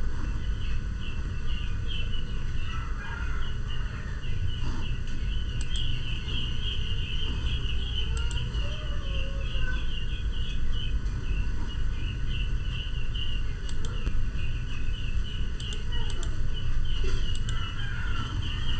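Continuous rapid high-pitched chirping of small wildlife, with a steady low hum underneath and a few fainter gliding calls.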